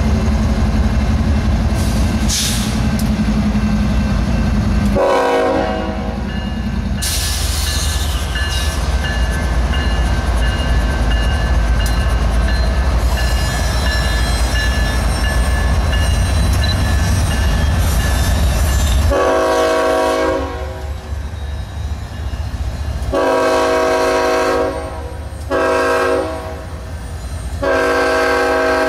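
BNSF diesel freight locomotives rumbling heavily as they pull past, with a brief horn blast about five seconds in. From about two-thirds of the way through, the lead locomotive's several-note air horn sounds four times, long, long, short, long: the standard grade-crossing signal.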